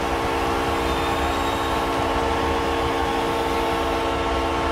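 NHL arena goal horn sounding one steady, unbroken chord of several tones, signalling a home-team goal, over a cheering crowd.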